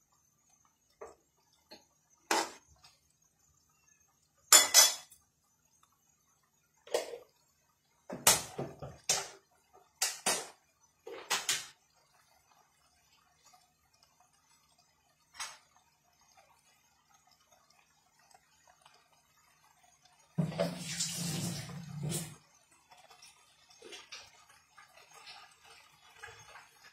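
Spatula knocking and scraping against a metal cooking pan in a string of short clatters over the first twelve seconds, as chicken and vegetables are stirred in sauce. About twenty seconds in comes a two-second rushing noise with a low hum, followed by faint bubbling from the simmering pan.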